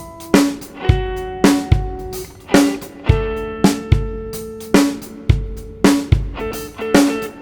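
Background music: guitar notes over a steady drum beat of about two hits a second.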